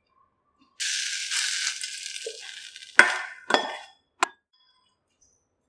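Tempering of mustard seeds, dals, onion and green chilli tipped and scraped from a steel pan onto steamed poha, a high hissing rustle that fades over about two seconds. It ends in three sharp metal clinks against the bowl within about a second.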